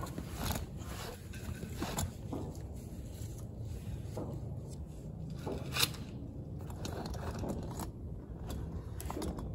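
Scraping and rustling handling noise as a person shifts position under a tractor and handles the camera and a metal gearbox, with a few sharp clicks and knocks.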